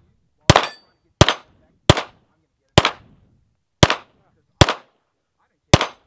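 Pistol fired seven times in a steady string, a shot roughly every second, each with a short echo trailing off.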